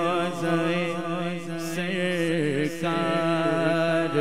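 A man singing a naat unaccompanied, holding and ornamenting long wavering notes without words between sung lines, over a steady low drone.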